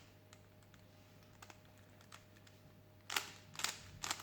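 Rubik's cube being twisted by hand, its plastic layers clicking as they turn: a few faint clicks at first, then a quick run of louder clicks about three seconds in.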